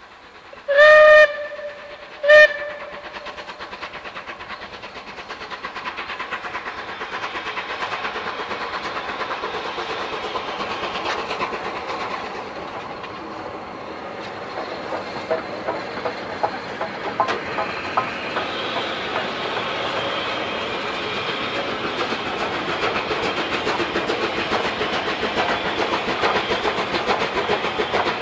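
Rebuilt Bulleid Battle of Britain Pacific steam locomotive 34059, a three-cylinder engine, sounds its whistle twice, a longer blast then a short one. It then runs past under steam, its exhaust and rolling noise growing louder as it approaches, with a run of sharp wheel-on-rail clicks partway through.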